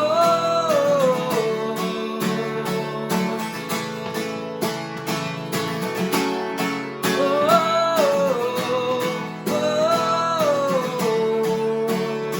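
Live worship band music: strummed acoustic guitar under a held, wordless sung "oh" melody that swells and falls a few times.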